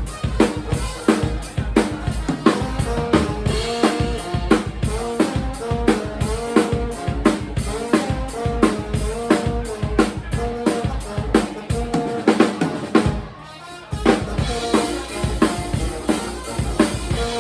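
Live band playing with no singing: a drum kit keeps a steady beat on bass drum and snare under pitched instrument lines. About thirteen seconds in the band drops out briefly, then the drums and the rest come straight back in.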